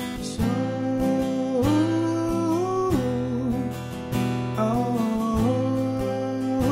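Acoustic guitar strummed in a steady pattern, with a held, wordless vocal line that slides between notes over it.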